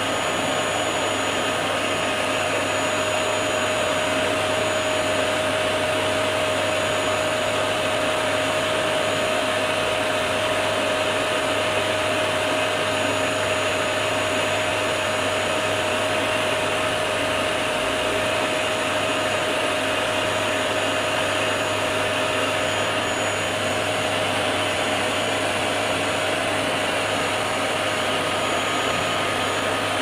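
Vacuum cleaner running steadily with a constant whine, its hose drawing dust off the fins of a split AC indoor unit's evaporator coil.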